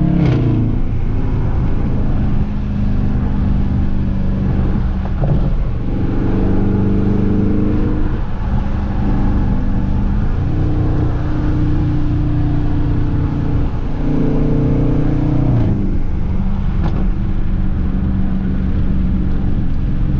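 Dodge Charger R/T's 5.7 L Hemi V8 exhaust heard from inside the cabin while cruising, with its active exhaust valves held open in Track mode. The engine note steps in pitch several times as the automatic transmission changes gear.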